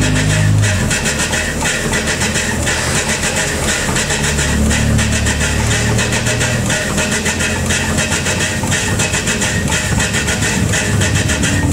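Steam train running: a loud, steady rumble and hiss.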